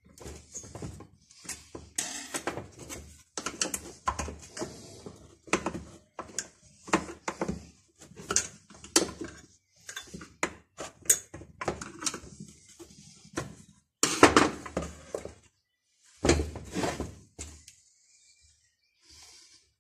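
Handling noises from work on a chainsaw's anti-vibration mounts: irregular clicks, clinks and knocks of a hex key and small parts against the saw's plastic housing. The loudest knocks come about fourteen and sixteen seconds in, and it falls almost quiet near the end.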